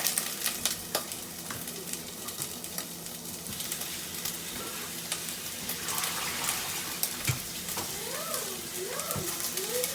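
Garlic, red onions and freshly washed green beans sizzling in hot oil in a pot: a steady frying hiss, with a couple of sharp knocks late on as the beans are added and stirred.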